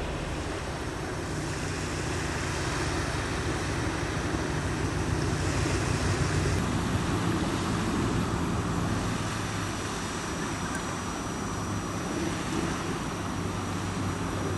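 Wind rumbling on the microphone over a steady low engine hum, with a slight change in the sound about six and a half seconds in.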